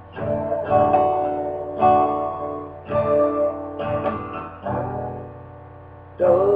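Acoustic guitar strummed in slow chords, a new strum about once a second, each chord left to ring and fade before the next.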